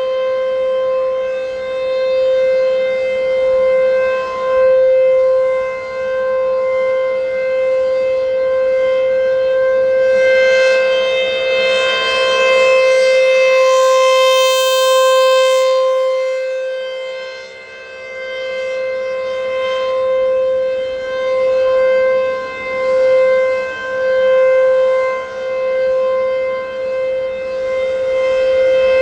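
American Signal T-135 outdoor warning siren sounding a steady tone on one pitch, rich in overtones. Its loudness and brightness swell and fade again and again.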